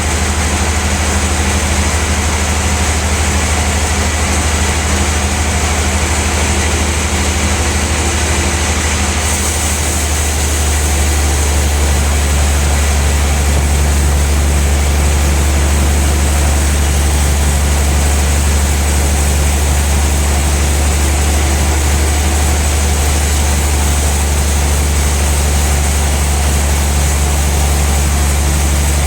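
Sawmill log band saw machinery running with a steady, loud low hum over a wide noise; it gets louder and higher about ten seconds in and holds there.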